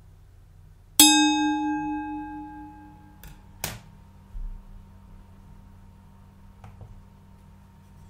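An object struck once, ringing with several bell-like tones that fade over about two seconds, then stopped short by a knock; a few faint clicks follow.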